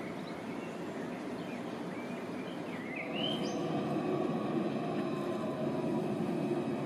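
Low rumble of an approaching Alstom Citadis 302 light-rail tram, which gets louder about three seconds in. A few bird chirps come in the middle.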